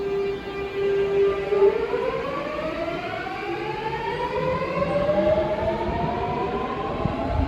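Busan Metro Line 2 electric train pulling away from the platform. A steady electric whine about two seconds in becomes several tones rising together in pitch as the traction inverter and motors speed the train up, over a low rolling rumble.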